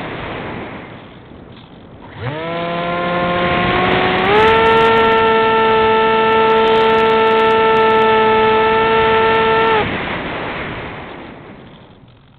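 Model aircraft motor and propeller heard through a camera on board the plane. About two seconds in, it throttles up with a quickly rising whine, steps up once more and holds a steady pitch for about five seconds. Then it drops away, leaving the rush of wind over the airframe.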